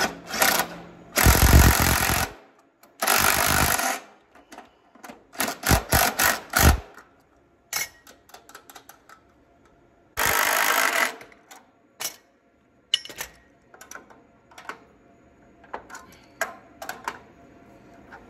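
Power drill on a socket turning a conveyor belt's take-up tension screw in three short runs of about a second each, with sharp clicks and tool clatter between them.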